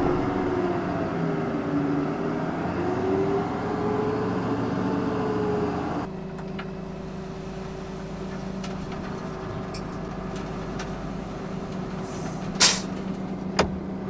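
Heavy-equipment diesel engine working, its pitch wavering up and down. About six seconds in it drops to a quieter steady idle. A short, sharp hiss of air comes near the end.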